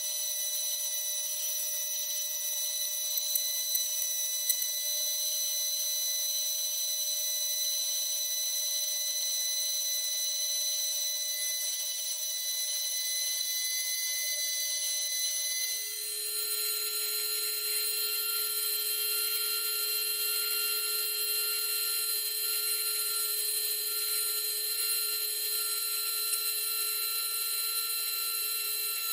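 Small high-speed electric drill with a fine bit running with a steady high whine while drilling out window holes in a model. A few light clicks come near the start, and about 16 seconds in the whine drops suddenly to a lower, still steady pitch.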